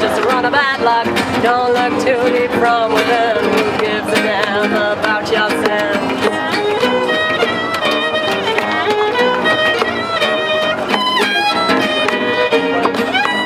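Acoustic folk band playing an instrumental passage: a fiddle carries the melody over strummed acoustic guitars and a steady cajon beat.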